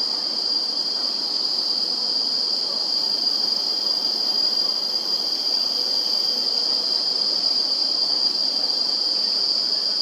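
Steady, high-pitched insect chorus: an unbroken buzzing drone that holds one pitch without pauses.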